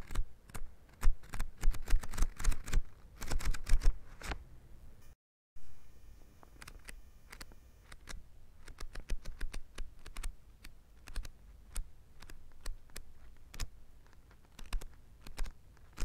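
Paper pages of a book being turned one after another, each leaf flipping with a crisp rustle and flap. The flipping is dense and loud for the first few seconds, drops out completely for a moment about five seconds in, then goes on lighter in small clusters.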